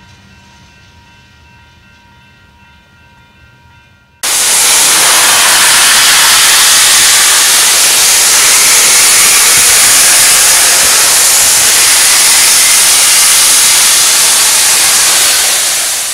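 A freight train passing faintly, then about four seconds in a sudden, loud, steady hiss of steam venting from Union Pacific Big Boy No. 4014, a 4-8-8-4 articulated steam locomotive.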